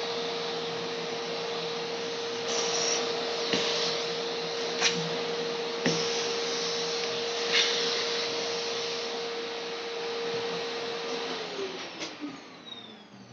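A small electric fan motor running with a steady whine over a rushing of air, with a few sharp knocks. It is switched off about eleven seconds in and winds down with a falling whine.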